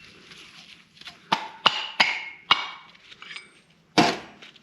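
A hammer striking a 1-inch socket to drive a jammed part out of a Barnes4wd Enduro joint: about five sharp metallic blows with ringing, unevenly spaced, the hardest near the end.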